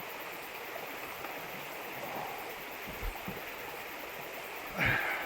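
Steady rush of running water, with a small thump about three seconds in and a louder thump near the end.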